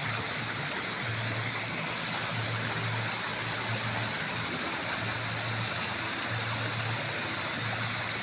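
Water of the Trevi Fountain pouring over its rock cascades into the basin, a steady rush. A low hum comes and goes underneath.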